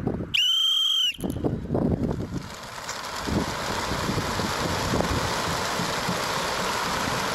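Lorry running toward the microphone with gusting wind noise on the microphone, settling into a steady hiss. About half a second in, a brief high whistle-like tone dips and rises in pitch.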